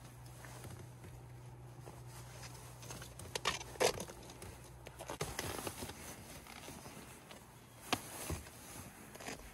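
Stretchy rubber ice cleats being pulled on over a leather boot: rubber rubbing and rustling, with a few sharp snaps as the rubber springs onto the boot. The loudest snaps come about four seconds in and again near eight seconds. A steady low hum underneath stops about five seconds in.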